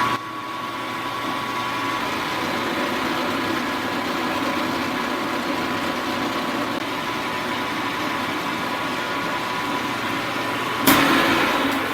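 Milling machine motor and spindle running steadily: an even mechanical whine with a constant tone over a hum. About eleven seconds in, a louder burst of noise comes in.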